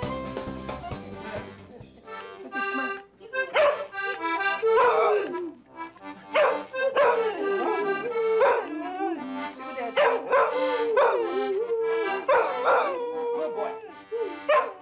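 A dog howling along to a button accordion: steady held notes with repeated yowling howls on top, each swooping down in pitch, about one every second or two. For the first couple of seconds only background fiddle music is heard before the howling starts.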